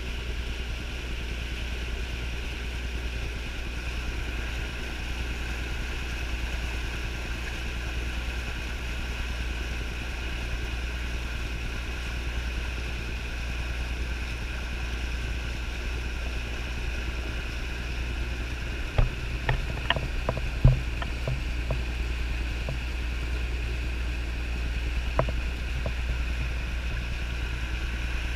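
A pontoon boat under way, its motor and the rushing water heard as a muffled steady drone through a GoPro's waterproof case. A few sharp knocks come about two-thirds of the way through, and one more a few seconds later.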